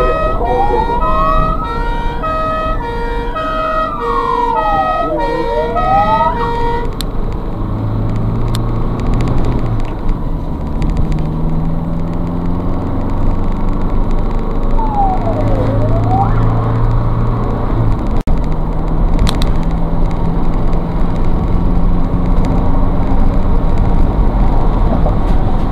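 Ambulance siren wailing in slow rising and falling sweeps, together with an alternating two-note tone, then cutting off about seven seconds in. After that, the ambulance's engine and road noise are heard from inside the cab, with one short siren chirp about fifteen seconds in.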